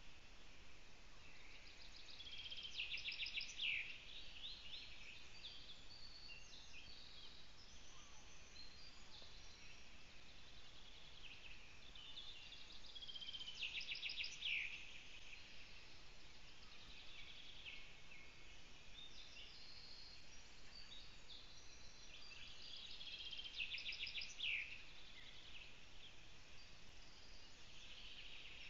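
Forest songbirds singing. One bird gives a short trilled song ending in a falling slide three times, about ten seconds apart, over fainter birdsong between.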